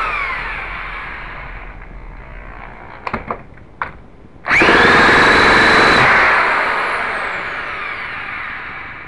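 A K&B .91 glow engine on a Byrojet ducted fan is spun over by an electric starter and does not fire. The fan runs down from an earlier spin, with a few clicks. About four and a half seconds in it is spun up again to a steady high whine for about a second and a half, then winds down with falling pitch.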